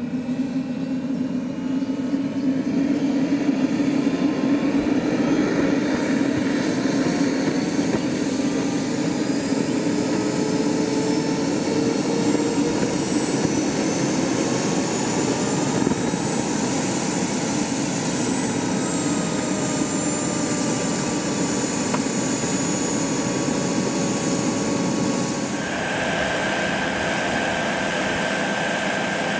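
Jet Cat PHT 3 model helicopter turbine spooling up on the ground, its whine gradually rising in pitch as the rotor comes up to speed. About twenty-five seconds in the sound switches abruptly to a steady, higher whine.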